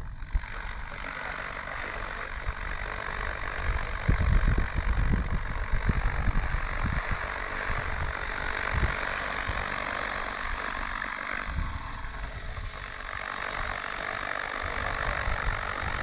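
60-class RC helicopter with an Airwolf scale body hovering low, its engine and rotors running steadily with a thin high tone over the noise. Gusts of low rumble, strongest between about four and seven seconds in.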